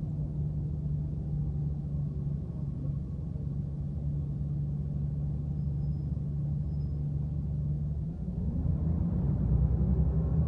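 Moving bus heard from inside the passenger cabin: a steady low engine hum with road noise. About eight seconds in it gets louder and rises in pitch as the engine pulls harder.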